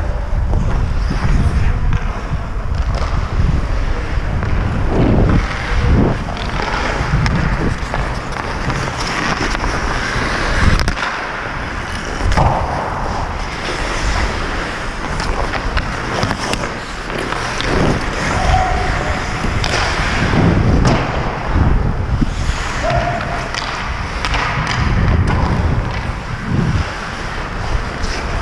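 Hockey skate blades scraping and carving on rink ice, heard from a camera worn by a skater, with wind rumble on the microphone and scattered knocks of sticks and pucks.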